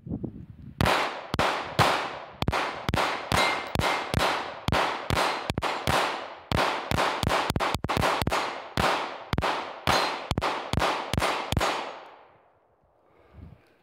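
A 9mm Glock pistol firing a long string of about 28 shots of aluminum-cased Federal ammunition from a 33-round magazine, steadily at about two to three shots a second. The firing stops about twelve seconds in.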